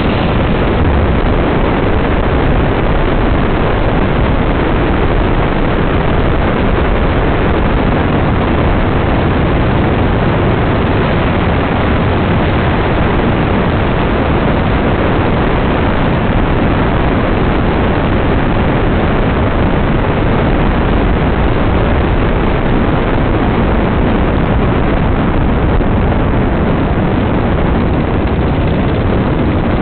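Dune buggy driving at a steady speed: a loud, even rush of engine noise and wind, with no changes in pace.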